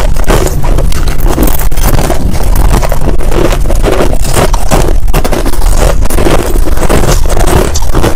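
Finely crushed ice being chewed by two people at once, close to lapel microphones: loud, dense, unbroken crunching made of many crisp crunches packed together.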